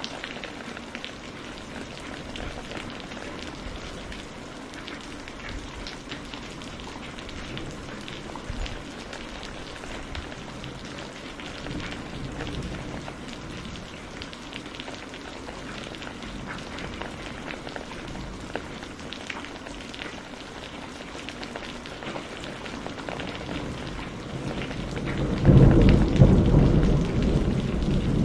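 Steady rain falling and pattering on hard surfaces, with fine drop ticks throughout. Near the end a deep rumble of thunder swells up and becomes the loudest sound.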